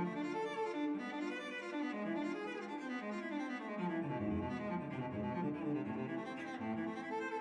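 Background music played on bowed strings such as cello and violin, a slow melodic line with low notes near the end.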